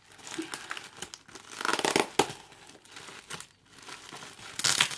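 Figure-box packaging being crinkled and torn by hand in irregular rustling bursts, loudest about two seconds in and again near the end.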